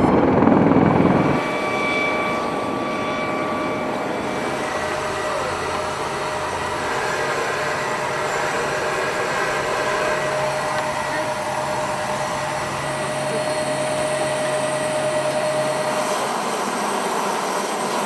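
Background music ends about a second in, giving way to the steady turbine whine and rush of a CH-53E Super Stallion helicopter on the ground.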